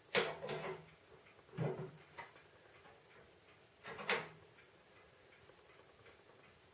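A few separate sharp clicks and knocks of metal parts being handled and fitted together on a snow blower's auger assembly. There is a cluster of them at the start, another a second and a half later and one more about four seconds in.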